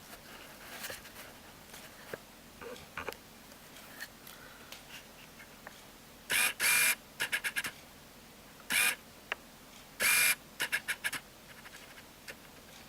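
Camera handling noise: scattered small clicks, then three loud short scraping bursts about two seconds apart, each trailed by quick clicks, as the camera is repositioned for a better view.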